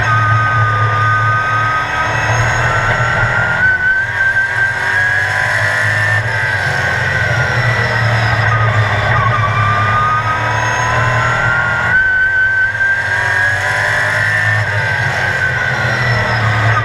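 Sportsman-class race car's engine heard from inside the cockpit at racing speed, its pitch climbing under throttle and then falling twice as the driver lifts and brakes for the turns.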